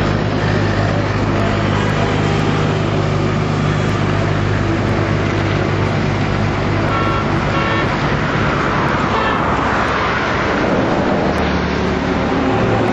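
Roadside traffic noise: a steady engine hum, a vehicle going past about nine seconds in, and two short horn toots just before that.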